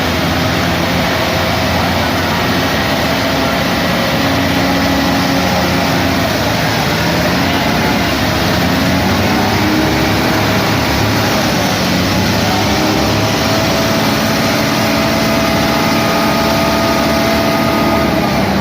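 Heavy diesel engines of a concrete mixer truck and a backhoe running steadily, the engine pitch drifting up and down a little.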